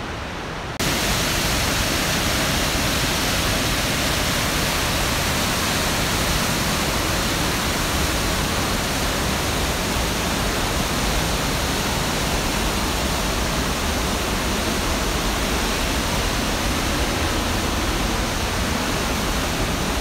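Whitewater rapids of the upper Kern River rushing: a loud, steady hiss of water that cuts in abruptly about a second in.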